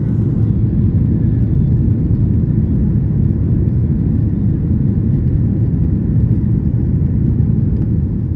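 Steady low rumble of a Boeing 737-800's engines and airflow, heard inside the passenger cabin.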